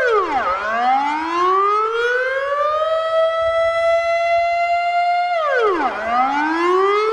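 Warning siren wailing: a held tone that drops sharply in pitch, climbs slowly back up and holds, then drops and starts climbing again near the end.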